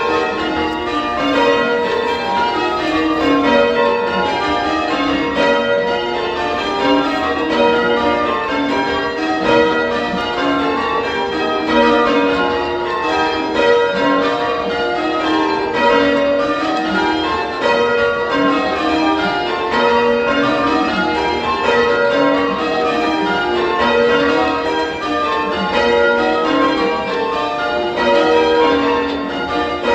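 A ring of Whitechapel-cast church tower bells in full-circle change ringing: a continuous stream of bell strokes in rows that shift order from one change to the next. The bells are bright and punchy.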